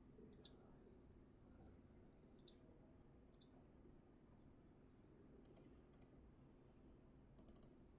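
Faint computer mouse clicks, several in quick pairs and one rapid triple near the end, spaced a second or two apart over low background hiss.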